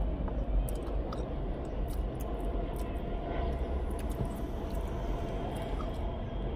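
Steady low hum inside a car's cabin, with a few faint clicks.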